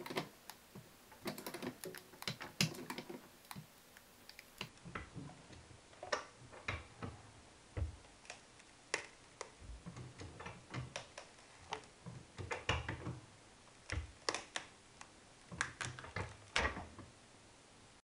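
Irregular clicks, taps and soft knocks of hands handling and flexing a worn-out, torn Adidas Neo sneaker, with a few duller thumps among them. The sound cuts off suddenly near the end.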